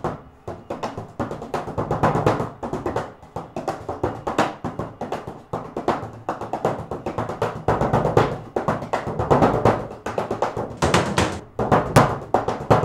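Bodhrán, the Irish frame drum, played with a wooden tipper in a fast, steady rhythm of strikes on its skin head.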